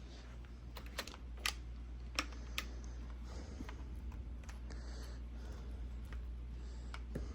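Scattered light clicks and taps of a chainsaw's plastic housing being handled, over a low steady hum.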